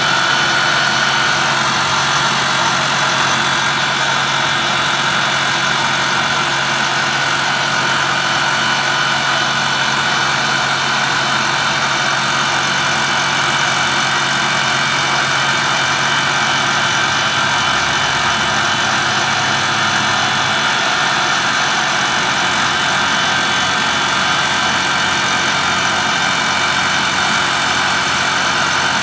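Metalworking machine tool running steadily while a gear is machined, with a constant whine over a low hum.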